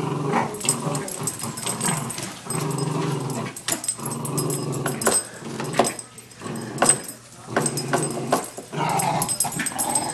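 Small dogs growling in repeated rumbles about a second long with short breaks between them, as they pull against each other in a tug of war over a sock. Scattered sharp clicks run through it.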